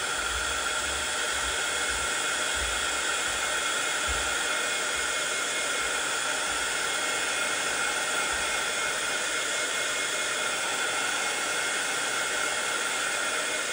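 Craft heat tool blowing steadily, drying and setting paint-stick colour on vellum: a steady rush of air with a high whine in it.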